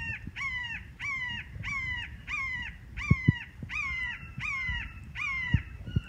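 A hawk calling a steady series of about nine clear, slightly falling notes, roughly one every two-thirds of a second.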